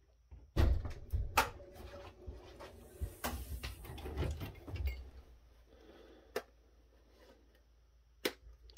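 Circuit board being lifted and shifted in a steel chassis, with rustling and knocks for about four seconds. Then two separate sharp clicks come as diagonal cutters snip at the board's spring pins.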